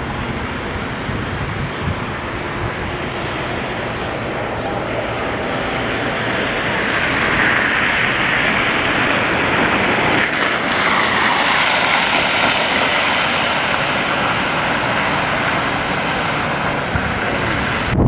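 A vehicle driving past on a snow-covered street, its rushing tyre and engine noise swelling through the middle and easing off toward the end.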